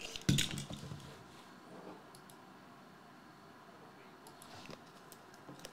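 Handling a shrink-wrapped hockey card box with a box cutter. There is a knock about half a second in, then scattered light clicks and crinkles from the plastic wrap.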